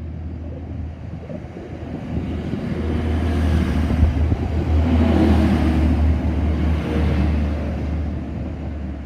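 TransPennine Express Class 185 diesel multiple unit passing close along the platform: a low engine drone and rushing wheel and rail noise build up as it draws level, loudest in the middle, then fade as it goes by.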